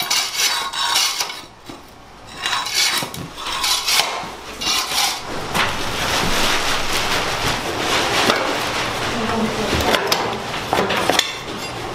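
Steel toothed floor scraper scraping over a bare concrete floor in short strokes. From about five seconds in, a denser continuous rustling and scraping with scattered clatters, as a plastic trash bag is filled with moldy debris.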